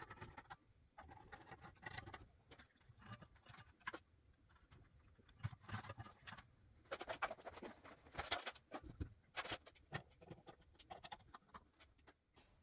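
Faint, scattered rustling, scraping and clicking of objects being handled.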